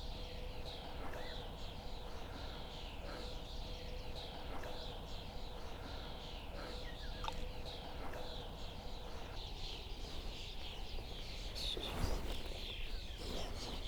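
Birds singing, a steady run of short, high, falling chirps repeated several times a second, over a faint steady hum. About twelve seconds in there is a brief louder knock.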